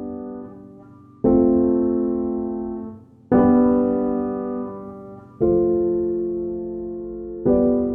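Slow piano background music: soft chords struck about every two seconds, each left to ring and fade.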